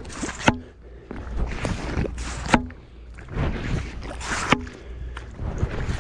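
Hand-worked PVC sand shrimp pump drawing wet sand and water out of a burrow: sucking, gurgling strokes, each ending in a sharp pop, three of them about two seconds apart.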